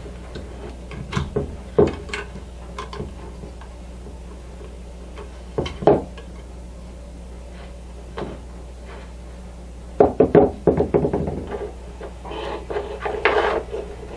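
Scattered clicks and knocks of tools and parts being handled on a disassembled router while its stuck carbon brush is worked on. A denser run of knocking comes about ten seconds in, followed by a scraping stretch, all over a steady low hum.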